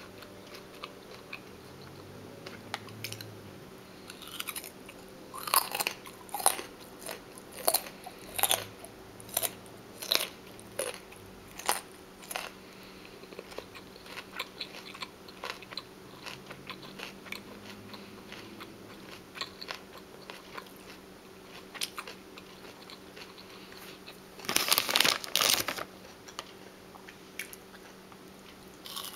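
Close-miked chewing of crunchy raw food: crisp crunches come about once a second for several seconds, then sparser, softer chewing. Near the end there is a longer, louder run of crunching, like a fresh bite.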